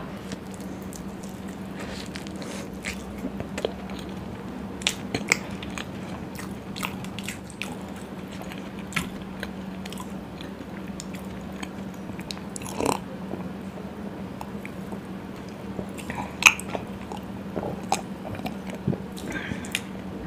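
Close-miked chewing of a mouthful of puri soaked in paneer butter masala: scattered soft clicks and wet mouth sounds. A steady low hum runs underneath.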